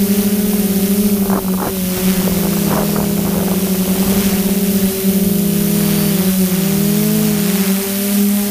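DJI F550 hexacopter's six electric motors and propellers buzzing steadily, heard from its own onboard camera, over a steady hiss. About two-thirds of the way through, the several close rotor pitches drift apart and cross, then come back together.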